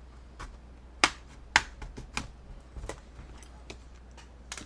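Plastic retaining clips of an HP 15-bs laptop's bottom case snapping loose one by one as a guitar pick is run along the seam: several sharp clicks, the two loudest close together about a second and a half in.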